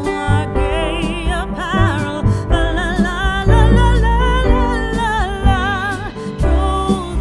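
Background music: a song with a singing voice over guitar and a steady bass line.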